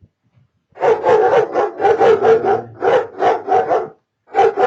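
A dog barking loudly in a quick run of barks, about three a second, with a short break near the end before barking again.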